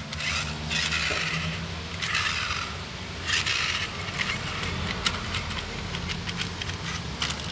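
A 1:16 toy RC rock crawler is pushed across a tile floor by hand, making three short scraping bursts of its rubber tyres on the tiles with a few small plastic clicks.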